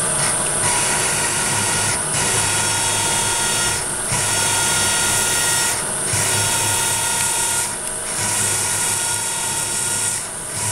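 A 1-1/16 inch annular (hollow) cutter turning in a mill spindle and cutting through quarter-inch steel plate, with coolant squirted onto the cut. It gives a steady high-pitched cutting whine over a machine hum, and the whine dips briefly about every two seconds.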